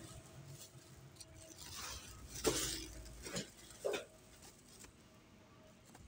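A woven plastic sack rustling and loose cabbage leaves being handled, with louder swishes and soft thuds about two and a half and four seconds in.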